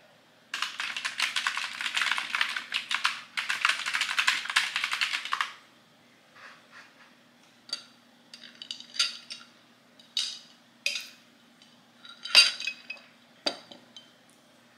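Fast typing on a computer keyboard for about five seconds. It stops, and scattered sharp clicks and light glassy clinks follow as a glass cup is handled, a faint steady hum underneath.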